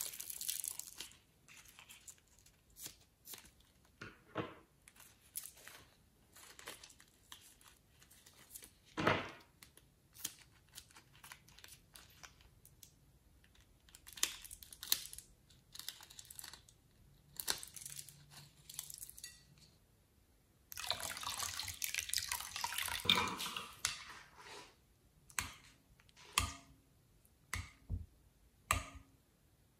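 Close-up handling sounds of slime and a rubber balloon: scissors snipping the balloon, then wet, sticky slime squishing and crackling as it is pulled and poured into a glass bowl. Scattered short clicks throughout, a denser squelching stretch about two-thirds of the way in, and several sharp pops near the end.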